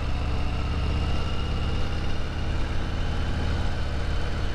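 Harley-Davidson Sport Glide's 107-cubic-inch V-twin engine running steadily under way at an even speed, heard from the rider's seat.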